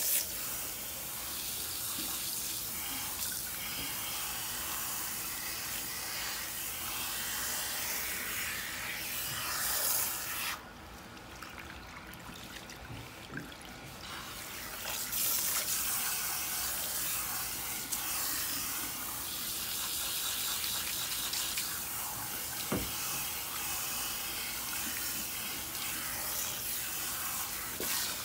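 Water from a salon shampoo bowl's handheld sprayer spraying onto hair and splashing into the basin. About ten seconds in the spray goes much quieter for a few seconds, then comes back.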